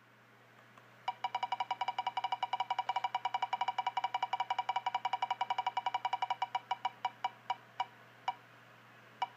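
Ticking sound effect of an online spinning prize wheel: a rapid run of even clicks about a second in, which then space out as the wheel slows to a stop, ending in a few single ticks.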